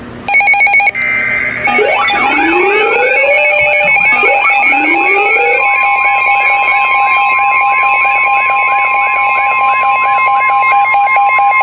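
NOAA Weather Radio alert for a relayed winter storm warning. First come short screechy data bursts of the SAME header. Then an electronic alert alarm sets in, warbling and repeating over steady tones, and a steady single warning tone joins about six seconds in.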